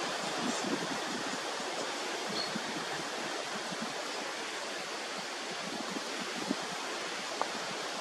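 Steady rushing of wind on the microphone and through the leaves, with two faint taps near the end.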